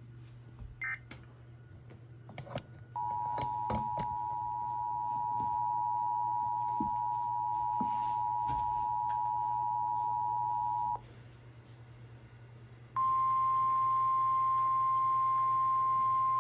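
Emergency Alert System two-tone attention signal: a steady dual tone that sounds for about eight seconds after a few clicks. After a two-second gap, the single-tone 1050 Hz NOAA Weather Radio warning alarm starts. A low hum runs underneath.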